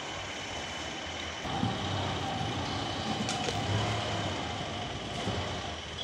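Sawmill machinery running steadily with a constant high whine, growing louder about a second and a half in.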